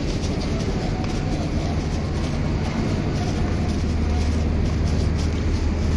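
Steady low hum of a Bangladesh Railway diesel train's engine at the platform, over a wide hiss of station noise that swells slightly near the end.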